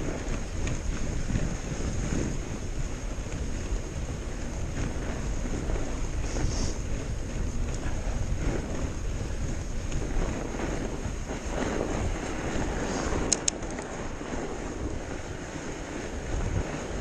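Steady low rumble of wind on the microphone and fat-bike tyres rolling over snow, with a brief cluster of sharp clicks about thirteen seconds in.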